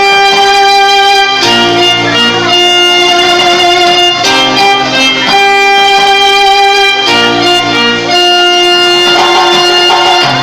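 Cumbia music played loudly over a sound system: an instrumental passage of long held melody chords that change every second or two.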